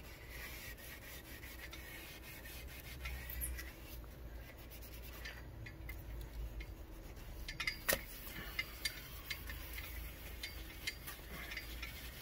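A sanding pad rubbed by hand over a plastic headlight lens, wet-sanding it: a faint, continuous rubbing scrape with scattered light clicks, the sharpest about eight seconds in.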